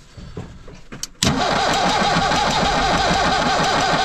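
Ford Transit 2.5 diesel engine cranked over by its starter, starting abruptly about a second in after a few light clicks and going on at a steady, even rhythm. It is being cranked to test whether the fuel line is drawing air, on an engine that starts and then stalls.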